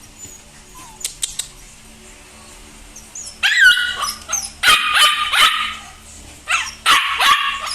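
Two-month-old husky–aspin mix puppies yipping and whining in a string of high-pitched, short calls, starting about three and a half seconds in after a few faint clicks.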